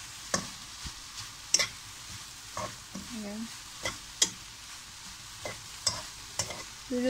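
Thinly sliced onions frying with a soft steady sizzle while a utensil stirs them round the non-stick pan, scraping and tapping sharply against it about once a second, unevenly spaced.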